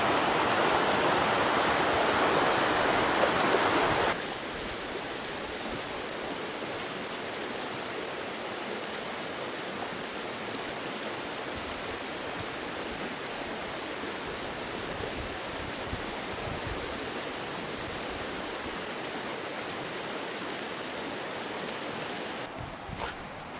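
Rushing water of a stream and its waterfalls, a steady noise. Louder for the first four seconds, then it drops suddenly to a quieter, even level.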